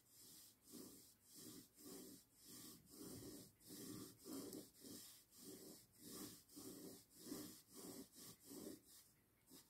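Fine-tip pen drawing short hatching strokes on watercolour paper: faint, rhythmic scratching, about two or three strokes a second, stopping shortly before the end.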